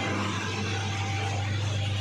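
Small spiral mixer running: a steady low electric-motor hum over a broad even machine noise.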